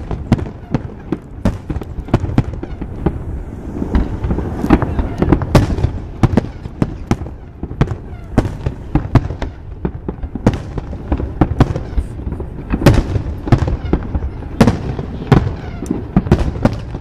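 Aerial fireworks shells bursting in a continuous barrage, several bangs a second with booms and crackles.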